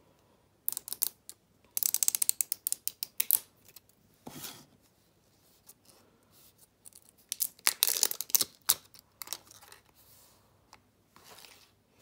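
Fingers working the plastic cap of a cosmetic gel tube, making rapid plastic clicking and crackling in several short bursts. The densest bursts come about two seconds in and again past seven seconds.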